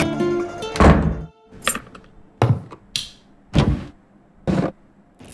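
Acoustic guitar music dies away, then a door lock clunks loudly as the key is turned. A run of five sharp clicks and knocks follows, spaced about a second apart.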